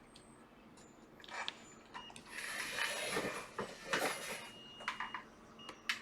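Clicks, scraping and rustling of tools and equipment being handled on a repair bench, with a faint high steady tone starting near the end.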